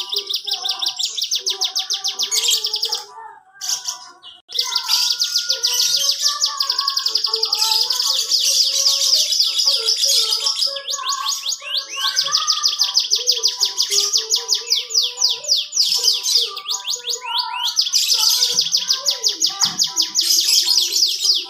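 Domestic canary singing in full song: long, very fast trills high in pitch, broken by short pauses about three seconds in, around eleven seconds and around seventeen seconds.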